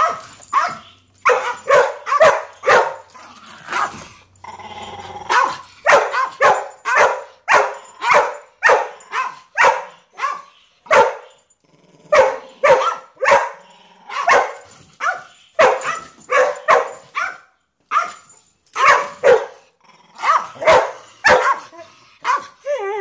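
Miniature Pinscher barking over and over, about two sharp barks a second, with a short stretch of low growling about four seconds in. He is guarding food he has stolen: resource guarding.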